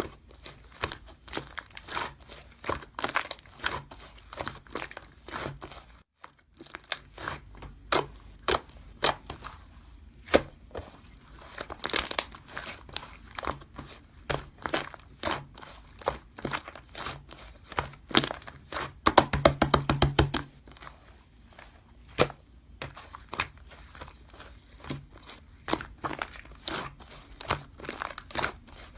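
Slime being handled: a steady stream of irregular sticky clicks and pops as it is pressed, stretched and folded. About two thirds of the way through comes a fast, louder run of popping as it is squished quickly.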